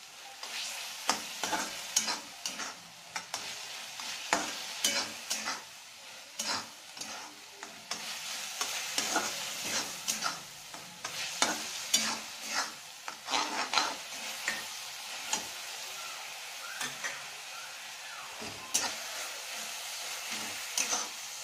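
Metal spatula scraping and clacking irregularly against a metal kadhai while stirring grated beetroot halwa, which sizzles steadily underneath as it is fried down on the gas flame.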